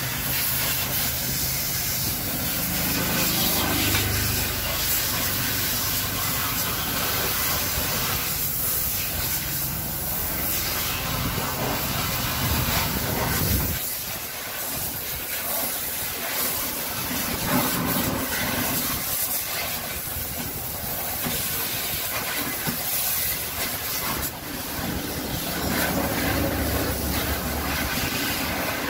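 Water spray from a hose hissing steadily as it is aimed into a car's wheel arch and across the tyre, with water dripping and splashing below.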